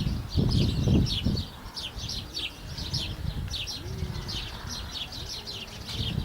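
Many small birds chirping rapidly, short high chirps several times a second. Low thumps sound under the chirps about half a second and a second in.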